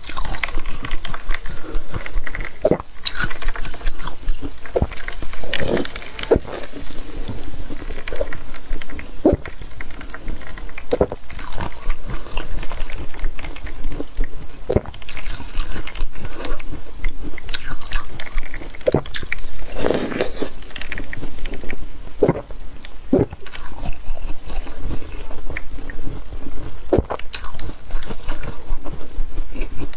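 Close-miked wet eating sounds from a chunk of frozen cola slush ice: slurping, sucking and crunching of the slushy ice, with a short sharp sound every second or two and liquid dripping.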